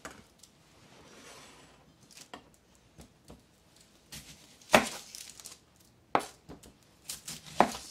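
Kitchen knife cutting an onion on a plastic cutting board: a few irregular knocks of the blade on the board, the loudest about halfway through and another near the end.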